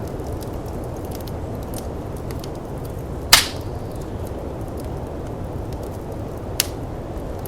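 Wood fire crackling with scattered small ticks over a steady low rush of snowstorm wind; one loud pop a little over three seconds in and a smaller one near the end.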